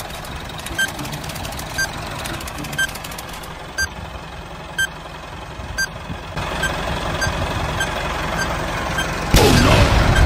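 Electronic countdown beeps about once a second, like a bomb timer, over a low steady rumble; about a second before the end a loud blast of noise breaks in as the toy grenade explodes.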